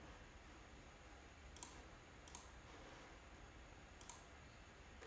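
Three faint computer mouse clicks, spaced a second or so apart, over near-silent room tone.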